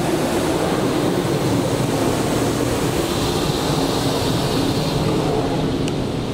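Water jets of a touch-free automatic car wash spraying against the car's roof and windscreen, heard from inside the cabin as a loud, steady rushing hiss that eases slightly near the end.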